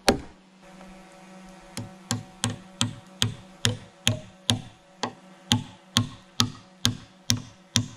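Claw hammer driving a wooden peg into a timber post-and-beam joint. One strike comes at the start, then after a pause of about a second and a half a steady run of sharp blows, about two to three a second.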